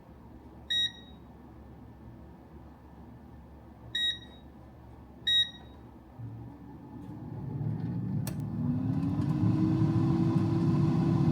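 Three short electronic beeps from an appliance's control panel as its buttons are pressed. A few seconds later its electric motor spins up, rising in pitch and loudness, with one click partway through, then settles into a steady hum.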